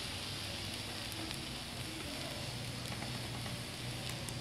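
Fried rice sizzling in a hot pan just after soy sauce has gone in: a steady hiss with a low hum underneath and a few faint ticks.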